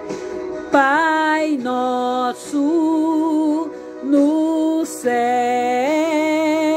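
A woman singing a hymn solo, in long held notes with vibrato, each phrase rising into its first note, with short breaks between phrases.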